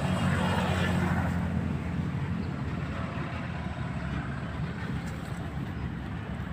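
A motor vehicle engine running steadily, a continuous low rumble, a little louder in the first second or so.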